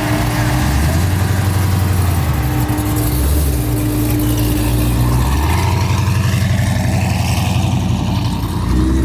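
Car engine running steadily at fairly low revs, its note shifting slightly a couple of times, over a constant hiss.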